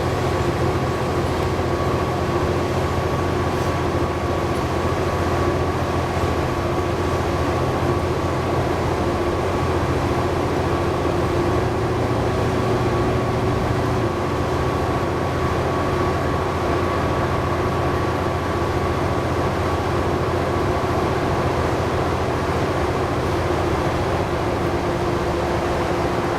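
Inside a 2011 New Flyer D60LFR articulated diesel bus under way: its Cummins ISL9 engine and Allison B500R transmission running at a steady pace, a low drone under road noise with a thin steady whine on top.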